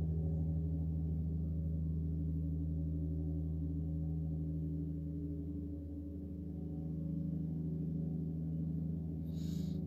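Lawnmower engine running steadily out in the yard, heard muffled as a low drone. It eases briefly around the middle, then comes back. A short rustle or click sounds near the end.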